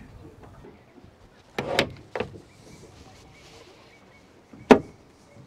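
Boat's tuna door being handled: a couple of short knocks about two seconds in, then one sharp click of its metal latch near the end.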